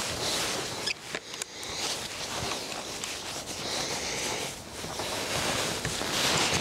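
Rustling of a padded jacket and handling noise as a rifle is lifted onto a tripod and settled, with a few small clicks about a second in.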